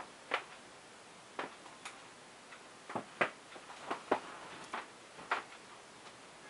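An irregular series of about ten sharp taps and clicks, unevenly spaced, with the loudest ones a little past the middle.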